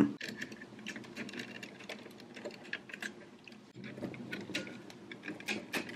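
Hard plastic toy parts clicking and knocking in a run of small irregular clicks as the arm sections of a Transformers combiner figure are handled and pressed into place.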